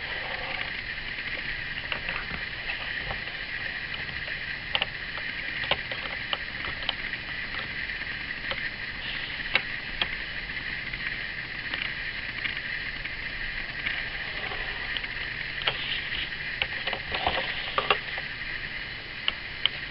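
Plastic set square and T-square being moved and set down on a drawing board, giving scattered light clicks and knocks over a steady hiss.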